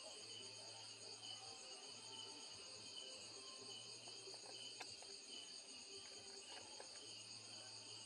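Faint chorus of crickets and other insects: a steady, evenly pulsing trill at several high pitches, with one soft click a little before five seconds in.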